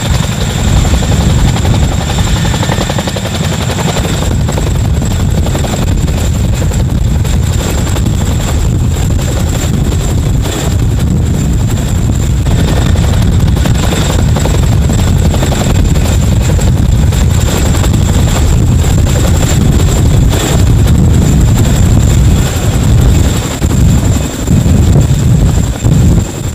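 CH-47 Chinook tandem-rotor helicopter running at close range: a loud, heavy rotor rumble with a steady high turbine whine over it.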